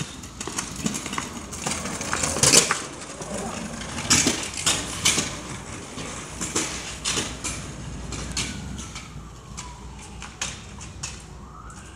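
Children's kick scooters rolling over concrete, their wheels and decks rattling with a run of sharp clacks and knocks, loudest in the first half. In the second half a faint tone slides down in pitch.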